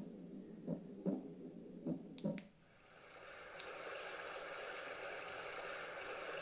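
Tommee Tippee Ollie the Owl sleep aid playing a steady hiss of soothing white noise through its speaker, fading in about two and a half seconds in. This is its cry-sensor response to the baby crying. Before it come a few faint sobs and two sharp clicks.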